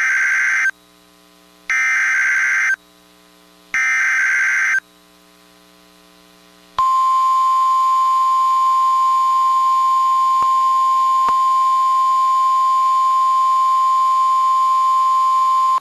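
Emergency Alert System SAME header: three data bursts of about a second each, a second apart, then a steady single-pitch warning alarm tone near 1050 Hz (the NOAA Weather Radio alert tone) starting about seven seconds in and holding for about nine seconds. It signals the start of a new snow squall warning.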